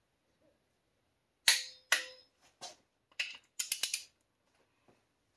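Click-type torque wrench clicking on cylinder head bolts being tightened to 60 ft-lb. A few sharp separate clicks are followed by a quick run of five or so clicks about three and a half seconds in.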